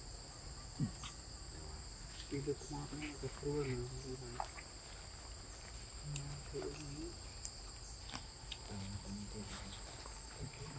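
Steady high-pitched drone of forest insects. Faint low voices come and go a few times over it, with a few light clicks.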